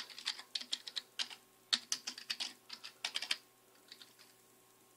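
Typing on a computer keyboard: irregular runs of key clicks, stopping about a second before the end.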